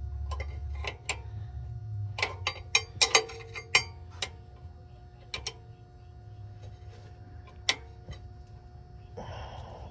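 Irregular metallic clicks and clinks of a wrench working a seized 7/16 brake line nut loose at a drum-brake wheel cylinder, with a short hiss near the end.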